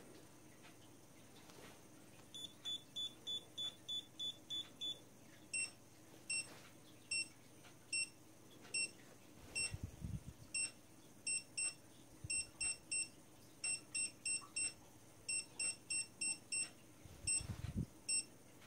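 Dogtrace D-fence 1001 electronic-fence collar receiver beeping as it is brought into the zone around the boundary wire, its warning signal. First comes a quick run of about eight higher beeps. Then follows a long series of lower beeps, irregularly spaced and often in pairs, with a couple of soft handling thumps.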